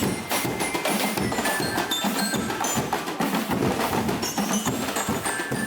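Drumblek ensemble playing: a busy rhythm of hits on used plastic barrels and tin cans, with a few ringing high melodic notes held over the top.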